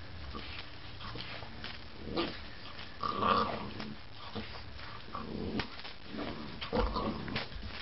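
Boxer dog growling in several short bouts while playing with a small toy.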